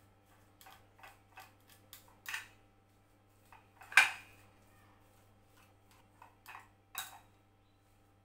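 A fork scraping and knocking against a ceramic plate while mashing boiled potato, in short irregular strokes. The loudest knock comes about halfway through.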